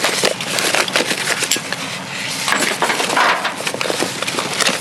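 Rummaging through discarded household junk: irregular knocks, clinks and crunching rustle as items and a box are handled.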